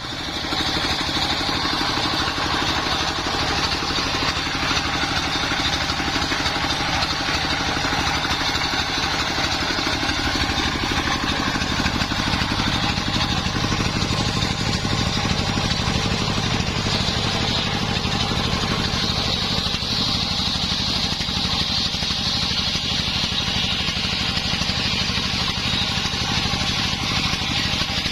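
Homemade engine-driven circular sawmill running steadily, the engine's rapid firing under a steady high whine from the spinning saw blade that grows stronger in the second half.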